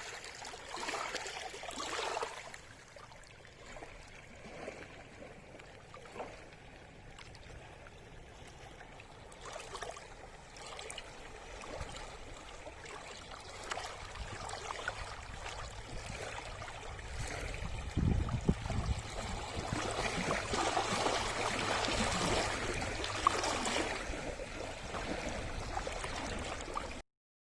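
Small waves lapping and breaking against rocks on a reservoir shore, swelling and fading unevenly, growing louder toward the end with a low thud about 18 seconds in, then cutting off suddenly.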